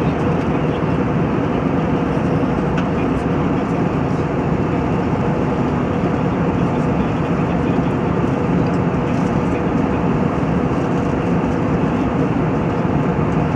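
Steady jet airliner cabin noise in cruise: the turbofan engines and rushing airflow heard from inside the cabin at a window seat by the wing, an even rushing noise with a faint steady hum.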